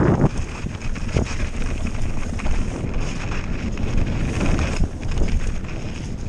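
Santa Cruz Nomad 4 full-suspension mountain bike riding down a rocky dirt trail, heard from a helmet-mounted camera: steady wind buffeting the microphone, with the tyres crunching over dirt and stones and frequent small knocks and rattles from the bike.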